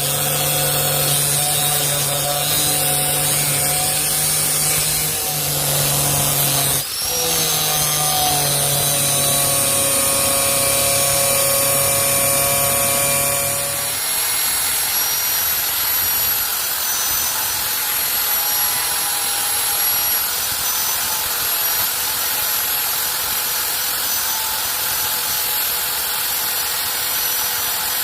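Electric power tool running steadily on the steel of an old stone chisel, with a held motor tone that breaks off briefly about seven seconds in. About halfway through, the sound changes to a steadier, higher whine.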